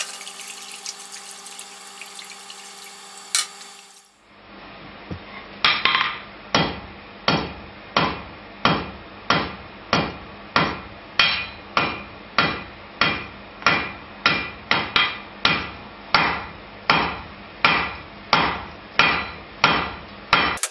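Hammer blows on a red-hot steel bar on an anvil, drawing its end out to a taper: a steady run of evenly spaced strikes about two a second, each with a short ring. They begin about five seconds in, after a low steady hum and hiss.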